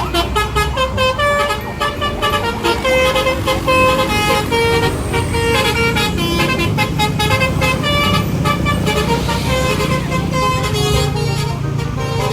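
A bus's telolet horn playing a fast run of short toots that step up and down in pitch, over the low rumble of the engine.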